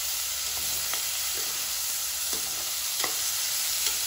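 Chicken pieces with onions sizzling in hot ghee and oil in a pressure cooker, stirred with a perforated metal ladle that scrapes and knocks against the pot about once a second over a steady frying hiss.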